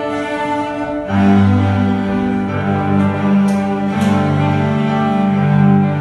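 Ensemble of young cellists bowing held notes together. About a second in, low notes come in and the music gets louder.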